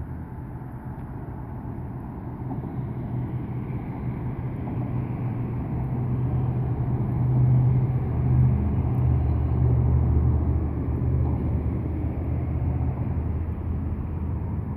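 Road traffic on a steel truss highway bridge: a steady low rumble that swells as a vehicle passes, loudest from about six to eleven seconds in, then eases off.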